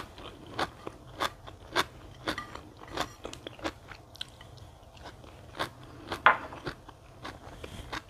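Close-up chewing of a mouthful of blanched sea kale leaf and rice: short, wet, crunchy clicks about twice a second, pausing briefly midway, then a few more.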